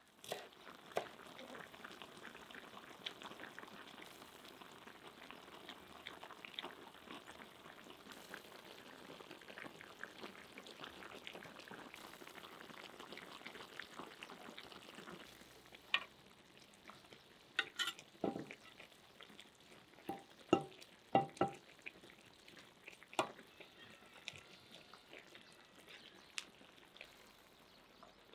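Dymlama of meat, potatoes and cabbage steadily sizzling and crackling in a cauldron for about fifteen seconds. It then quietens, and a metal ladle knocks and clinks a dozen or so times as the stew is served onto a plate.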